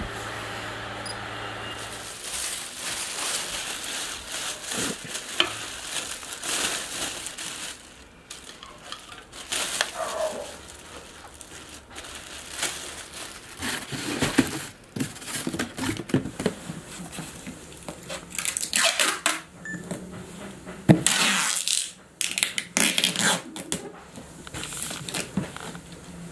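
A small exhaust fan's motor hums steadily for about two seconds, then stops. After that, plastic wrapping crinkles and cardboard cartons rustle and knock as the fans are packed into boxes. There are sharp knocks throughout and a loud scraping rustle about three-quarters of the way through.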